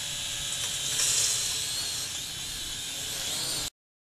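FQ777 FQ40 brushed quadcopter's motors and propellers in flight: a steady high-pitched whine that wavers in pitch, louder about a second in. It cuts off abruptly near the end.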